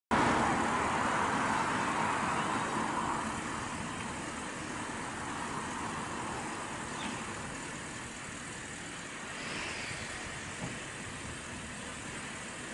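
Bentley Continental GTC standing while its fabric convertible roof folds down: a steady hum from the car and its roof mechanism. It is loudest at first and eases off over the first few seconds, with a light click about seven seconds in and another near the end.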